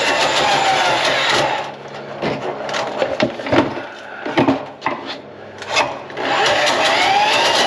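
A small motor running with a wavering pitch, which stops about a second and a half in. Several knocks and clunks follow, then the motor starts up again about six seconds in.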